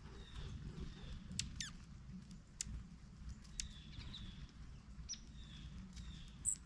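Scattered, irregular sharp taps of a pileated woodpecker pecking at wood while foraging. Thin, high bird calls are faint in the background, with one quick downward-sliding chirp.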